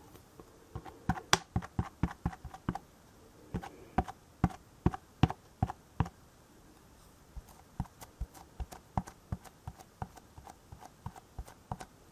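Light, irregular tapping, an ink pad dabbed again and again onto a photopolymer stamp to ink it, in three runs with short pauses between.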